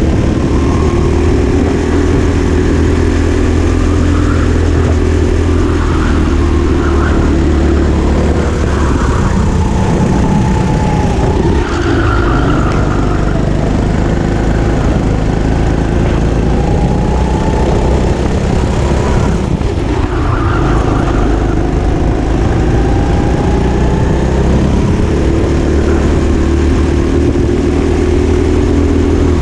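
Go-kart engine run hard and heard loud and close from the driver's seat, its pitch rising as the kart speeds up and dropping each time it slows.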